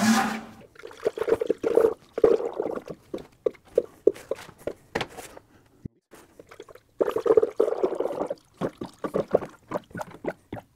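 Green coolant glugging out of a plastic jug into a funnel on a radiator filler neck, in uneven gulps as air bubbles back into the jug. It pauses briefly around the middle, then glugs again. A sharp knock sounds right at the start.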